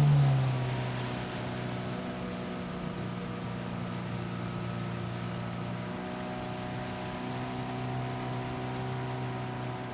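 Boat's outboard motor running; it is throttled back in the first second, the pitch dropping, then runs steadily at lower revs.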